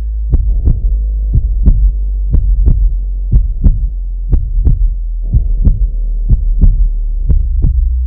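Heartbeat sound effect: a double thump, lub-dub, about once a second, over a steady low hum.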